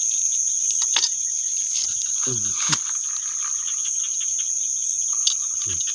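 Steady high-pitched chorus of night insects, with a few sharp clicks on top.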